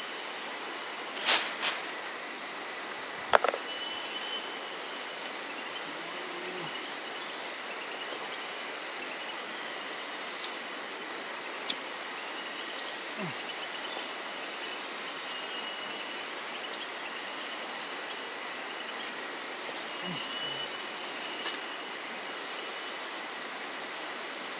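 Steady rush of river water with the thin, steady buzz of insects. A few sharp clicks or knocks come about a second in and again about three seconds in, the second being the loudest.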